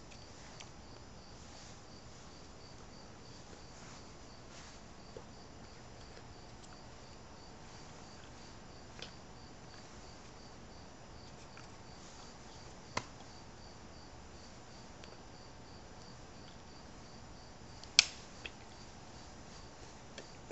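A cricket chirping faintly at an even rate over a low hiss, broken by a few sharp taps, the loudest about 18 seconds in and a smaller one about 13 seconds in.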